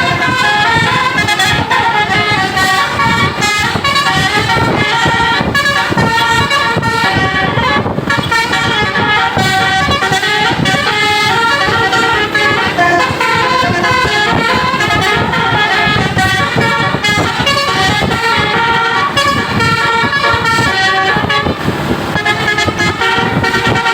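Basuri telolet horn on an Indonesian bus: a set of multi-tone trumpet horns playing a tune of short stepped notes that change pitch several times a second, over a low rumble.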